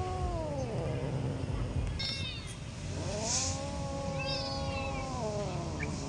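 Cat meowing: a short meow that rises and falls at the start, then one long drawn-out meow of about two seconds that drops in pitch at the end. A few short high chirps are heard over it, along with a steady low rumble.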